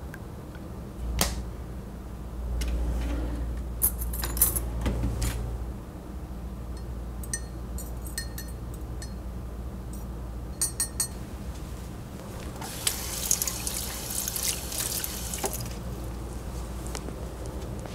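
Kitchen handling sounds: a few sharp clicks and knocks and some small clinks, then a faucet running into a sink for about three seconds as a glass is rinsed under it.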